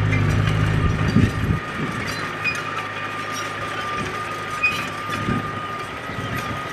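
Crawler bulldozer working: its diesel engine hums low and then drops away about a second and a half in. Steel tracks and blade give a few clanks, over a steady high-pitched whine.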